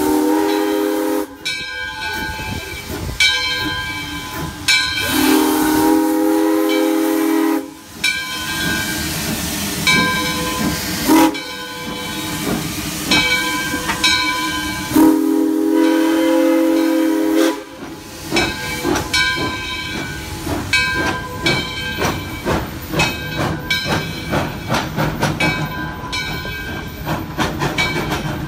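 Arcade & Attica No. 18, a 2-8-0 steam locomotive, sounding long blasts on its steam whistle three times, with steam hissing between them. From about two-thirds of the way in, a quick run of clicking as the engine and its coaches roll past over the rail joints.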